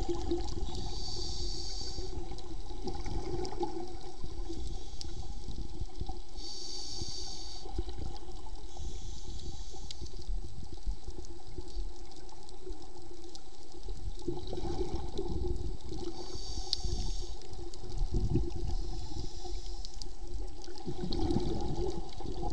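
Underwater sound of a diver breathing on scuba: a short hiss from the regulator on each inhale, recurring every few seconds, and bubbling rumbles as exhaled air escapes. Under it runs a steady low water rush with a faint steady hum.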